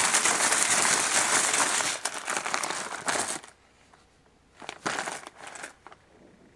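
Wrapper crinkling and rustling as trading cards are handled, continuous for about three and a half seconds, then a few short crinkles after a brief pause.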